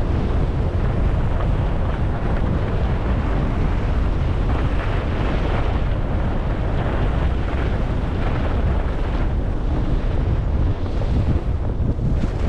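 Wind buffeting a helmet-cam microphone while skiing downhill at around 45 km/h, a heavy steady rumble, with the hiss of skis sliding and scraping over groomed, packed snow swelling now and then.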